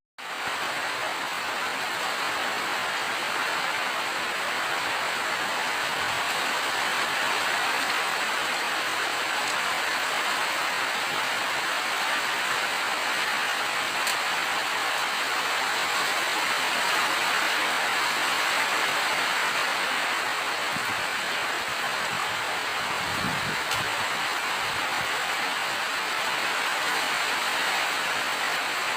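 Steady, heavy rainfall, an even hiss of rain on surfaces that holds at one level throughout, apart from a momentary dropout at the very start.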